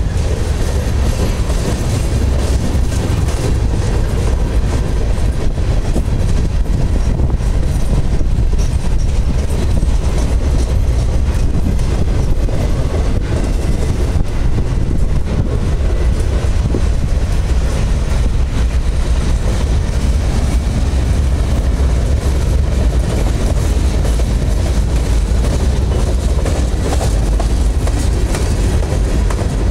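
Freight cars rolling past: a steady, loud rumble of steel wheels on rail, with frequent clicks over the rail joints.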